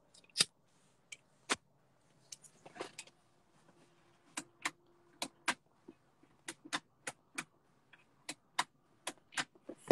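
Irregular sharp clicks and light taps, about twenty scattered through, all faint.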